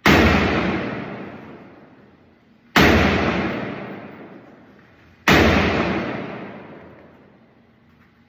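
Three gunshots about two and a half seconds apart, each followed by a long echo that dies away over about two seconds.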